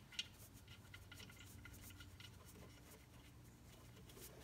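Near silence with faint small ticks and scrapes: the oil drain plug, fitted with a new crush washer, being threaded back into the BMW X1's oil pan by hand.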